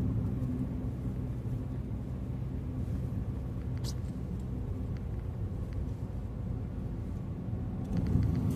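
Steady low engine and road rumble heard from inside a moving car, growing louder near the end.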